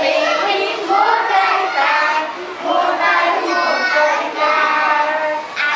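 A group of small children singing an action song together in unison.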